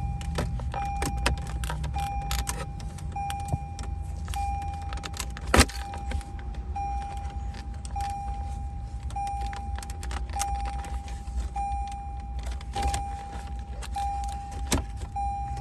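Plastic trim clicking and tapping as an interior panel around the joystick controller is pried off, with one loud knock about five and a half seconds in. A car's warning chime beeps steadily about once every second and a bit, over a low, even hum.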